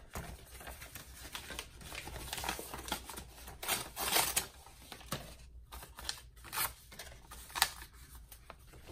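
Paper being handled and rustled, with scattered light taps and clicks. There is a louder rustle about four seconds in and a sharp tap near the end.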